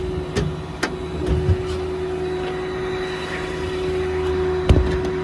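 An engine idling steadily with a constant low rumble. A few short knocks come over it early on and a louder knock near the end, the kind made by handling the truck's compartment doors and shelves.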